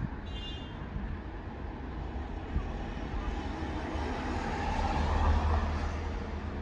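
Wind buffeting the microphone over passing road traffic, with a vehicle going by that grows louder and fades around five seconds in. A brief high-pitched tone sounds just after the start.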